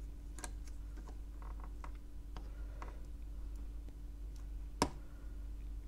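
Faint, scattered ticks and small clicks from soldering on an aluminium M8 battery post with a 150 W high-mass iron, the tip pressed into the melting solder; one sharper click about five seconds in, over a steady low hum.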